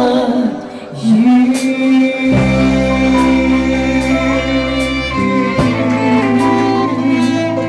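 A male and a female singer in a live duet hold the final note of a slow pop ballad, with a slight vibrato, over the musical accompaniment. The note ends about five seconds in and the accompaniment plays the closing bars.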